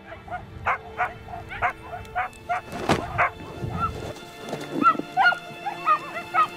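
A dog barking over and over in short barks, about two or three a second, with a few higher, quicker yelps near the end.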